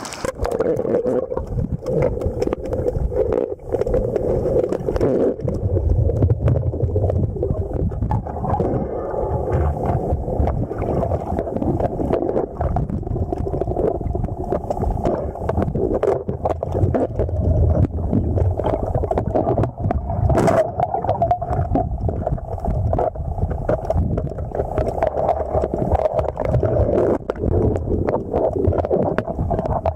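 Muffled rushing of river water heard underwater, steady throughout, with many small knocks and scrapes.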